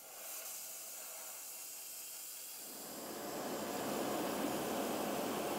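Iwata Eclipse dual-action airbrush hissing as it sprays paint onto styrene model roof panels. Nearly three seconds in, a louder, lower steady machine whir joins the hiss.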